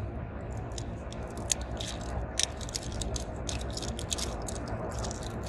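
Small plastic toy pieces and packaging being handled, giving a scattered string of light clicks and crinkles, over the steady low rumble of a car's cabin.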